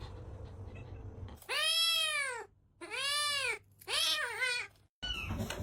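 Domestic cat meowing three times in a row. Each drawn-out call rises and then falls in pitch, and the third wavers.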